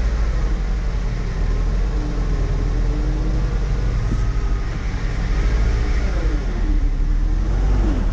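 2004 Ford Focus engine and drivetrain running under a heavy, steady low rumble, its pitch rising and falling several times in the second half. The owner takes the noise for a worn clutch or transmission part, damaged by revving to 6,000 rpm.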